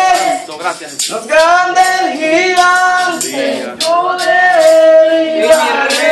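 A man singing a worship song into a handheld microphone, holding long notes with vibrato between short breaths. Light percussion ticks sound behind the voice.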